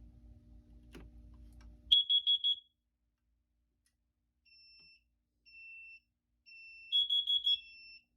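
Carbon monoxide alarm sounding its four-beep pattern: two bursts of four quick high beeps about five seconds apart. About halfway through, a second, lower-pitched beeper joins, pulsing about once a second. A low hum cuts off just as the first beeps start.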